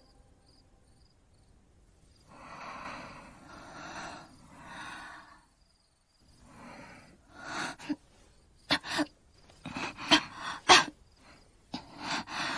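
A woman breathing heavily in three long, rasping breaths, then gasping sharply several times in quick succession as she comes round from unconsciousness.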